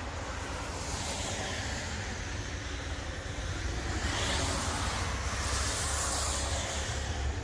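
Road traffic going by on wet pavement: tyre hiss swells about a second in and again, louder, from about four seconds, over a steady low rumble.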